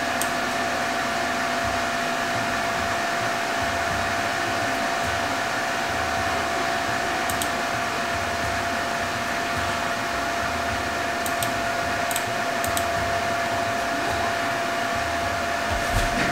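Mac Pro tower's cooling fans running with a steady whirr and a constant tone in it. A few faint clicks come over it.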